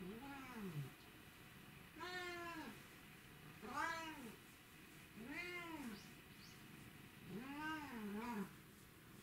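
Domestic cat meowing five times, each meow rising then falling in pitch, about one every second and a half to two seconds; the last meow is longer, with a dip in the middle.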